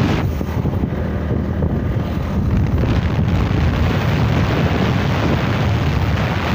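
Wind buffeting the microphone with tyre and road noise from a vehicle travelling at highway speed, a steady, loud low rush.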